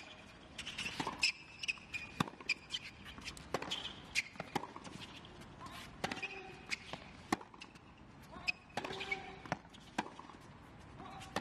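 Tennis rally: racquets striking the ball back and forth about once a second, with ball bounces and short sneaker squeaks on the court in between.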